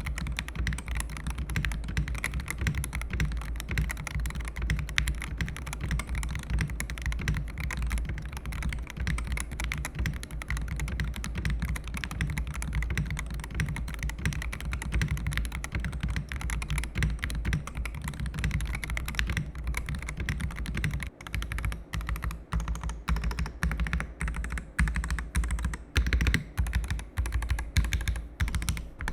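Yunzii RT75 magnetic-switch mechanical keyboard being typed on fast and continuously, the key clicks running together. In the last several seconds the keystrokes come slower and more separate, some of them louder.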